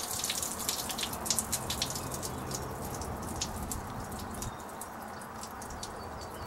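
Water dripping and trickling out of a window air conditioner tipped forward to drain after being hosed out; the drips come thick at first, then thin out.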